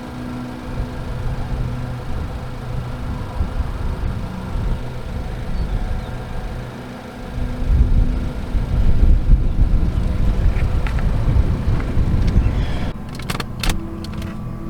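Car running, heard from inside the cabin: a steady low engine and road rumble that grows louder about halfway through, with a few sharp clicks or knocks near the end.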